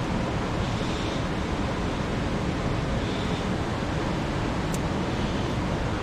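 Steady rushing of water pouring over a small waterfall, an even, unbroken noise.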